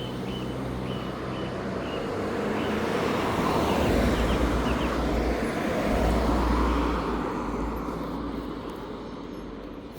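Road traffic passing close by: vehicles going by one after another with tyre noise and low engine rumble, swelling loudest about four and six and a half seconds in, then fading away.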